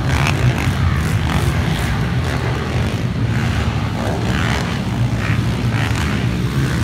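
Small off-road motorcycle engines running on the track in a steady, buzzing drone that rises and falls slightly as the mini dirt bikes race past.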